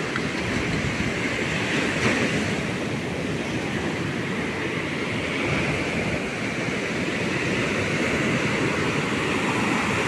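Sea surf washing onto the beach: a steady rushing noise that swells and eases slightly.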